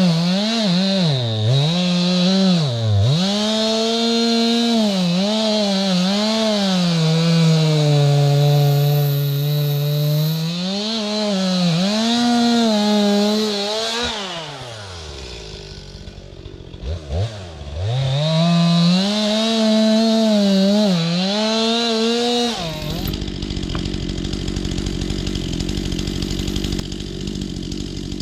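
STIHL MS 261 two-stroke chainsaw revving and cutting wood, its pitch rising and falling and sagging under load in the cut. It eases off briefly partway through, then revs and cuts again. Near the end it gives way abruptly to a steady low drone.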